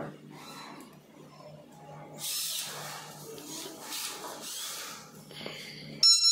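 Electric horn of a Kugoo G2 Pro scooter sounding about six seconds in as the handlebar button is pressed: a sudden, loud, steady buzzing tone. It tests the 12 V accessory circuit fed by the newly replaced buck module. Before it, faint handling clicks and rustles over a low steady hum.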